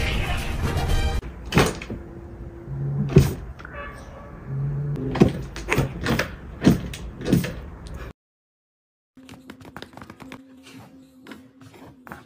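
Cats scuffling and batting at each other: a run of sharp knocks and thumps, broken by a second of silence about eight seconds in, then lighter clicking and tapping.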